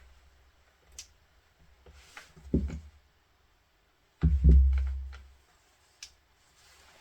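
Handling noises on a workbench while a cable is probed with a multimeter: a couple of sharp clicks and some low knocks, the loudest a heavy thump a little past the middle that dies away over about a second.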